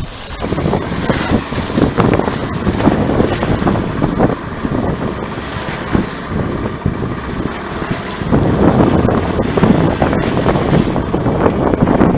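Strong wind buffeting the microphone over rough, choppy sea, with louder gusts from about eight seconds in.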